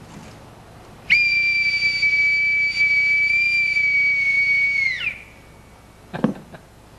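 A boatswain's call (bosun's pipe) blown in one long, steady, high whistle of about four seconds, sliding up into the note and dropping off at the end. A couple of light knocks follow near the end.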